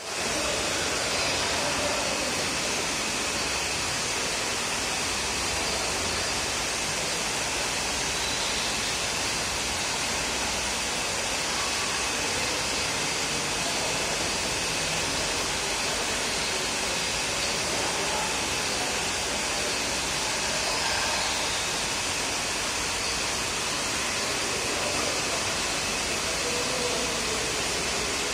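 Steady, even rushing background noise with a faint high steady tone running through it. Nothing from the sloth itself is heard.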